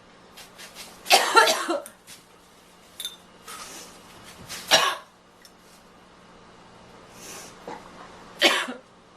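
A girl coughing: a burst of harsh coughs about a second in, another cough just before the middle, and another near the end, with softer breathy sounds between.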